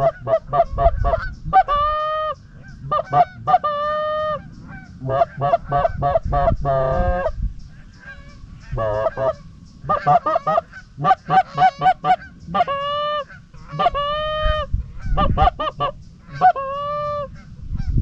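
Canada goose honks and clucks in quick runs, with longer drawn-out honks and a fast chattering trill about seven seconds in, the calling used to bring a lone goose in to land.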